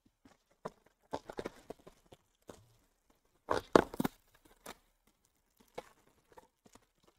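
A shrink-wrapped cardboard box of baseball cards torn open by hand and its foil card packs pulled out: scattered crinkling and rustling, loudest a little under four seconds in.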